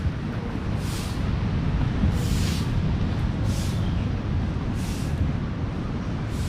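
Steady rumble of ocean surf, with a soft crunching swish about every second and a quarter: footsteps in sand.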